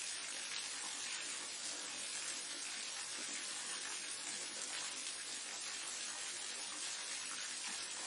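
Waterfall: a steady rushing hiss of falling water, bright and even, with little deep rumble.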